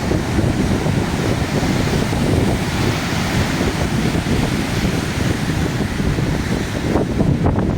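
Strong wind buffeting the microphone over the steady rumble of heavy surf.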